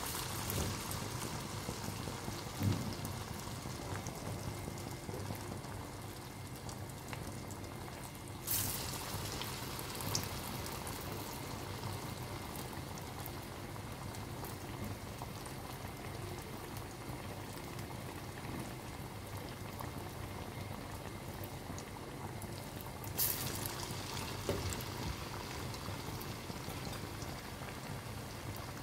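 Battered bread fritters deep-frying in hot oil, a steady bubbling sizzle with fine crackles, surging louder for a moment twice, about eight seconds in and again near the end.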